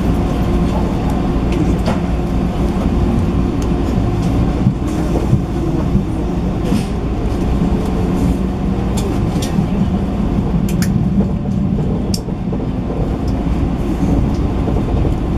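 Running noise inside a JR 185-series electric motor car (MoHa 185): a steady low rumble of wheels on rail with a traction-motor hum, and scattered sharp clicks.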